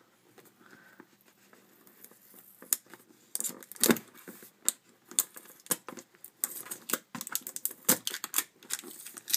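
Seal stickers being picked at and peeled off a cardboard box, with a pen tip among the fingers: quiet at first, then from about three seconds in, irregular scratches, sharp taps and clicks, and tearing of the sticker.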